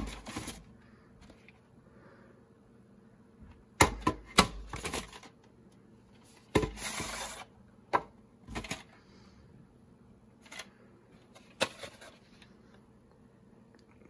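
A plastic VHS cassette and its cardboard sleeve being handled: scattered sharp clicks and clacks of the cassette shell, with a short scraping rustle about halfway through as the tape slides against the sleeve.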